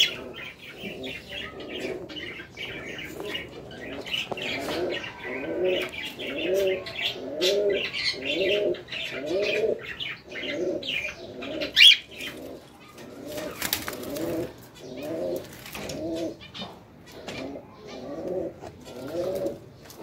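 Caged birds calling: a low rising note repeated about every two-thirds of a second, over high chirping of smaller birds, with one sharp, loud high call about twelve seconds in.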